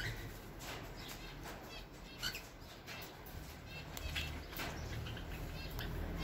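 Aviary birds, zebra finches and cockatiels at a feeding dish, chirping in many short scattered calls, with a brief flutter of wings at the very start.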